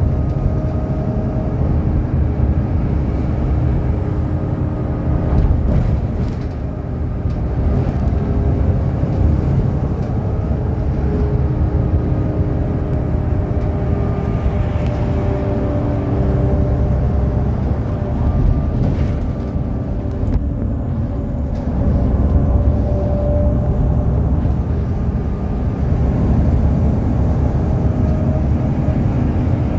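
Cabin noise inside a NefAZ 5299 city bus cruising at steady speed: a low engine and road rumble with a few steady tones above it and occasional faint rattles.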